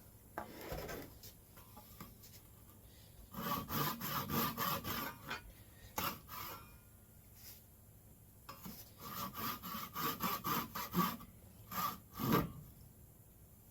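DeWalt hand pull saw cutting through wood, trimming a piece off flush, in two main runs of back-and-forth strokes with short pauses between them.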